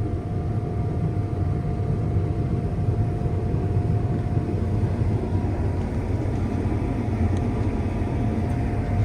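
Combine harvester running steadily while cutting wheat, heard from inside the cab: a continuous low machine rumble with a faint steady whine above it.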